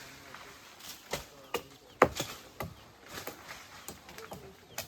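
Sharp, irregular chopping knocks of a blade striking wood, roughly two a second, the loudest about two seconds in, with faint bird chirps in the background.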